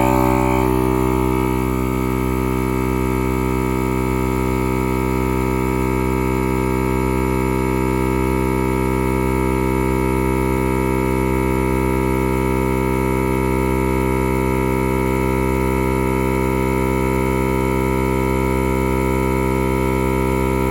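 Air compressor, just repaired with JB Weld, running steadily with a droning hum while pumping air into a flat tire.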